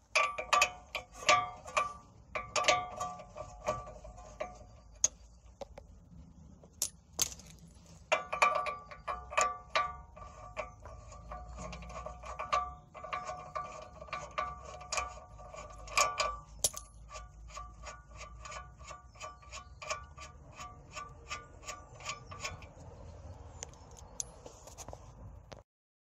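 Ratchet wrench clicking as a socket undoes the bottom bolt of a rear suspension knuckle, each click ringing metallically. It comes in short bursts at first, then about halfway through settles into a steady run of about three clicks a second that stops a few seconds before the end.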